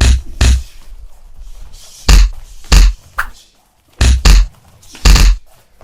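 Series of heavy strike impacts, punches and kicks landing with deep, booming thuds. There are about eight, in quick pairs and singles, at an irregular fighting rhythm. They are likely added impact sound effects.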